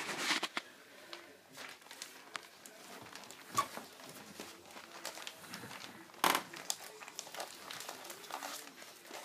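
Newspaper crinkling and rustling under a young Welsh Springer Spaniel puppy crawling on it and hands handling the puppy: irregular crackles, with a sharper crackle about six seconds in.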